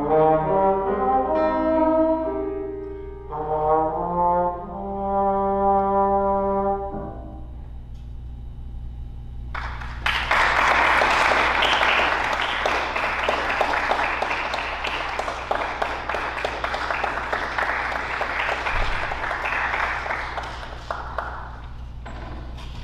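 Trombone with piano playing the last phrases of a piece, ending on a held low note about seven seconds in. After a few seconds' pause, audience applause that fades out near the end.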